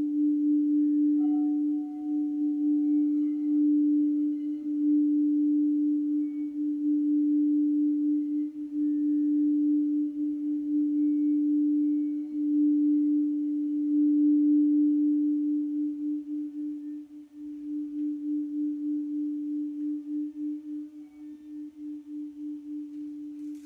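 Crystal singing bowl rubbed around its rim with a mallet, holding one steady low tone with a faint higher ring briefly early on. About two-thirds of the way through the rubbing stops and the tone rings on, pulsing in slow waves as it fades.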